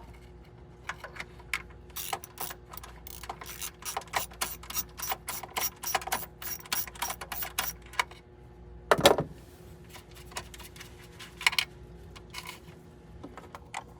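A socket ratchet clicking in quick runs, about five clicks a second, as it backs out the screw holding the water heater's access cover. There is a single louder clunk about nine seconds in.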